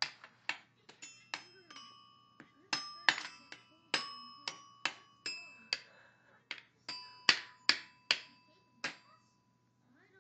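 Xylophone struck unevenly with a mallet by a young child: about twenty scattered, irregular strikes, some notes ringing on.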